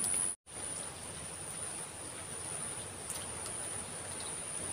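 Steady outdoor hiss with a continuous high-pitched insect buzz, the sound cutting out for a moment about half a second in.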